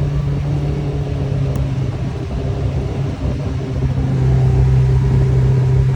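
Kawasaki Ridge side-by-side's engine running steadily under way, heard from inside its enclosed cab, with no rattling or frame creaking over the rough ground. The engine grows louder about four seconds in.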